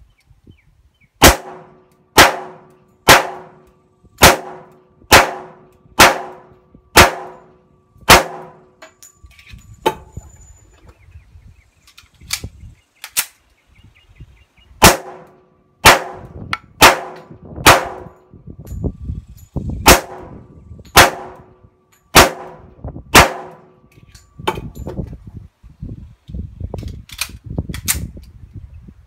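Sig Sauer 1911 pistol firing .45 Auto Federal 230-grain full metal jacket rounds at a steady pace of about one shot a second. A string of about eight shots is followed by a pause of several seconds, then another string of about eight.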